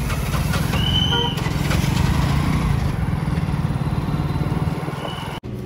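Motorbike engine running while riding in street traffic, with a steady low pulse under road and wind noise. A short high beep sounds about a second in and again near the end. The sound briefly drops out just before the end.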